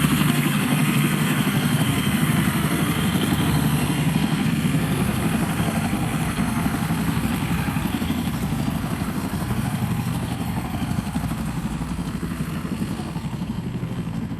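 Helicopter in flight, its rotor and engine running steadily, slowly fading away.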